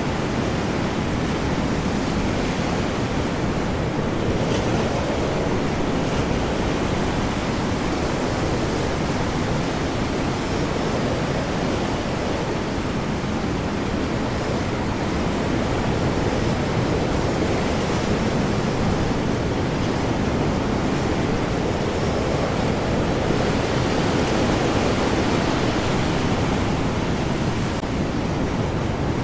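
Stormy ocean with heavy waves and high wind: a steady, deep rushing noise that swells slightly now and then, with no single wave breaks standing out.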